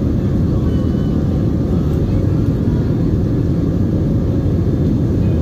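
Steady low rumble of an Airbus A320 in flight, engine and airflow noise heard from inside the passenger cabin.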